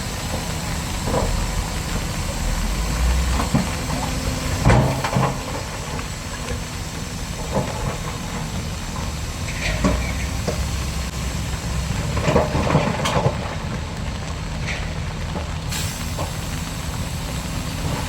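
Heavy diesel earthmoving machinery running steadily with a hiss, with occasional clanks and knocks, loudest about five seconds in and around twelve to thirteen seconds in.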